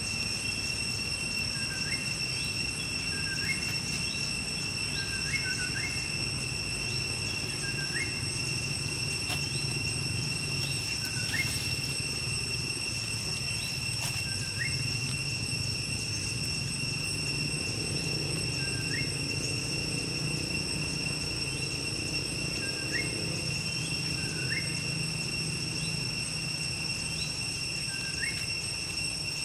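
Insects droning in a steady high tone, with short faint rising chirps every second or two and a low rumble underneath.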